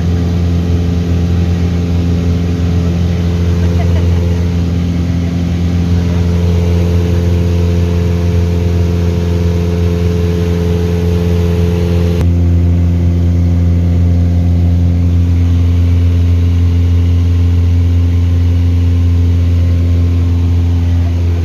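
Light propeller aircraft's engine droning steadily, a loud low hum with a constant pitch. About twelve seconds in, the higher hiss drops abruptly while the drone carries on.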